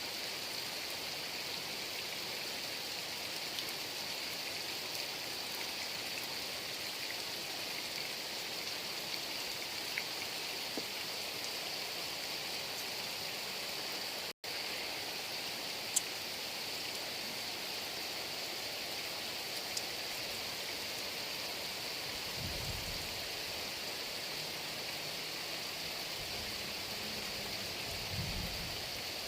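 Heavy rain falling steadily: an even hiss with a few faint drop ticks. The sound cuts out for a split second about halfway through, and a faint low rumble comes in near the end.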